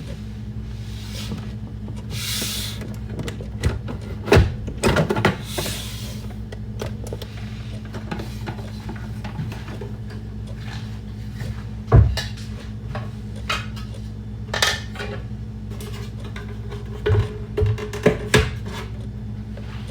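Kitchen handling sounds: scattered knocks and clatters of objects being set down and moved, with two brief rushing noises, over a steady low hum.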